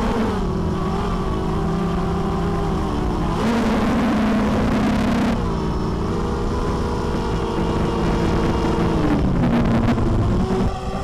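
Mini quadcopter's Sunnysky 2300kv brushless motors spinning 5x3 props on 4S power, heard from the onboard camera as a steady motor whine with wind rush. The pitch jumps up for about two seconds a few seconds in as the throttle is punched, falls back, dips briefly near the end and climbs again.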